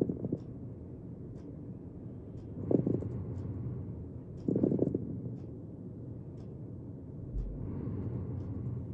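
Stethoscope recording of breath sounds heard through the chest wall, with louder surges of airflow every two to three seconds and short clicks scattered through them, as in crackles.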